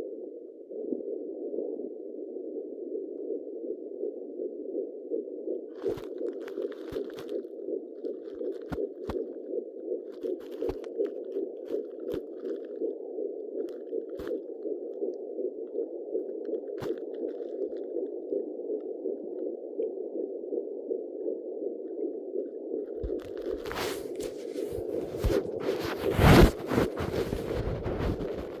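Fetal heartbeat at 11 weeks picked up by a handheld fetal Doppler: a fast, even pulse over a steady hiss from the Doppler's speaker. Scattered clicks are heard, and louder scraping and crackling near the end.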